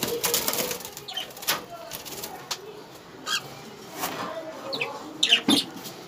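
Cockatiels fluttering and clattering against a wire-mesh cage as a hand reaches in, with a few short chirps from caged birds about three seconds in and again near the end.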